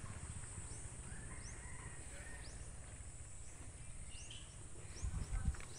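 Outdoor garden ambience: a steady high insect drone with several short rising bird chirps scattered through it, over a low rumble. A few low bumps come just after five seconds.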